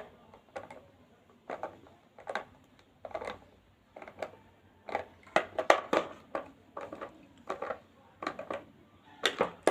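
Irregular short clicks and scrapes of a screwdriver and the blender's hard plastic housing as the case is screwed shut, about a dozen in all, thickest around the middle.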